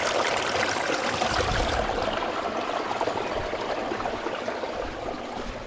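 Rain-swollen runoff rushing steadily through loose-stone check dams in an erosion gully, holding water back while letting some through; the rush grows a little quieter near the end.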